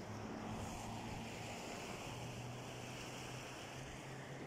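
Steady, fairly faint rushing of a fast-flowing flood stream of rainwater, mixed with wind on the microphone, over a low steady hum.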